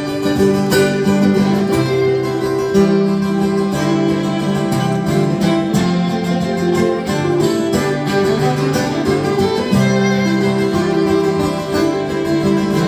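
Live folk band playing an instrumental passage: fiddle with strummed acoustic guitars, no vocals.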